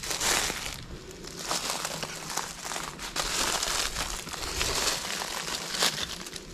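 Footsteps crunching and rustling through dry leaves and brush, an uneven run of crackles.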